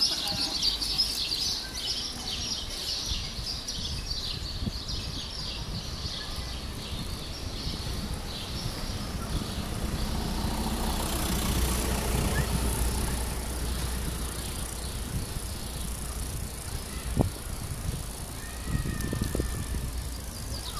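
Street ambience recorded on the move along a city street: a steady low rumble of wind and rolling noise, with high bird chirps in the first few seconds. The noise swells in the middle, and there is a single sharp knock near the end.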